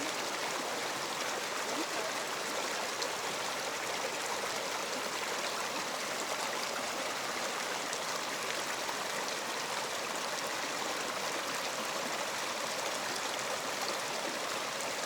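A stream of water flowing steadily, with an even rushing hiss.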